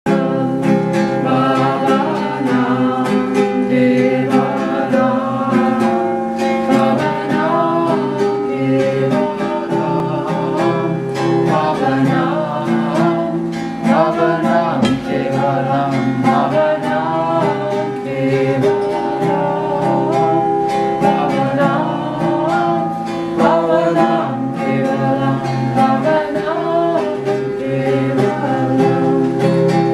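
Acoustic guitar strummed in a steady rhythm, accompanying singing.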